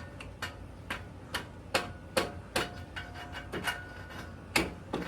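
Repeated metal-on-metal taps, about two a second, each leaving a short ring, as a stuck part of the motorcycle's rear wheel assembly is worked loose.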